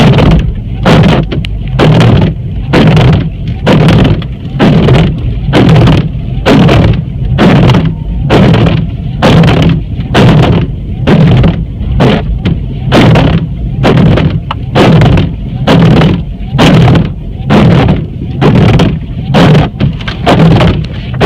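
Windshield wipers sweeping across a dry windshield, each stroke a loud thumping, chattering scrape, repeating steadily a little faster than once a second. It is the sound of wipers dragging on dry glass.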